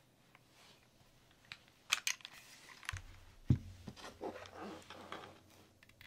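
A 60% mechanical keyboard being handled: a few sharp clicks and knocks as it is turned over and set down on a desk mat, the heaviest knock about three and a half seconds in, followed by softer rustling and small clicks.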